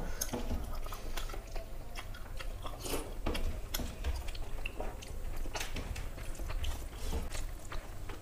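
Close-miked eating sounds of two people having rice and curry by hand: chewing, with many short, irregular wet clicks from mouths and from fingers mixing rice on the plates.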